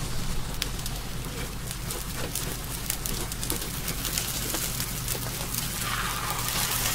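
Beaten egg sizzling and crackling in hot oil in a frying pan, as a Spanish omelette cooks. About six seconds in, the omelette is lifted with a spatula to be flipped and the sizzle gets brighter and louder.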